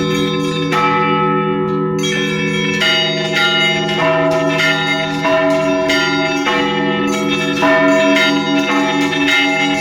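Russian Orthodox church bells rung together in a festive Easter peal. A deep, continuous hum from the larger bells sits under rapid, repeated strikes of the smaller bells, several a second, with no pause.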